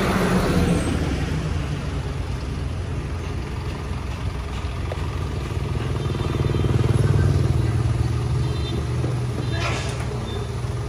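Road traffic: a dump truck passes at the start, then a Hyundai Mighty light cargo truck's diesel engine runs close by. Its low rumble swells about six seconds in. A short hiss comes near the end.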